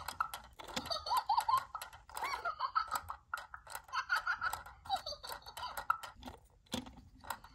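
Interactive My Squishy Little Dumplings toy making its electronic sounds after its cheeks are pressed: squeaky, chirpy cartoon babble and giggles that slide up and down in pitch, mixed with quick clicks as its eyes roll.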